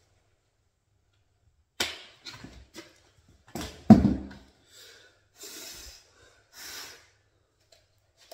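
Hard plastic parts of an electric paint sprayer being handled: a run of knocks and clatters, the loudest about four seconds in. These are followed by three short, breathy hisses. The sprayer's motor is not running.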